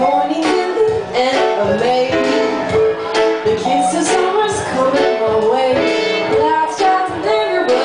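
A live band plays a song: a woman sings into a microphone over violin and keyboard accompaniment, with a steady low beat.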